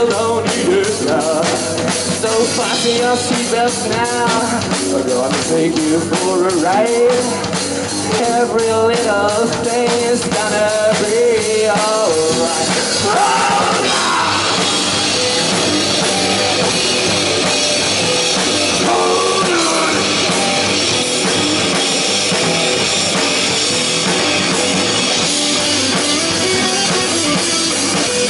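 Live rock band playing: a singer over drums, electric guitar and bass guitar, with the singing mostly in the first half and a denser instrumental passage after it.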